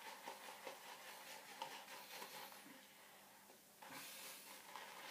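Faint wet rustling and soft ticking of a shaving brush whisking soap lather round a lathering bowl, first one way then the other, with a short lull a little past the middle.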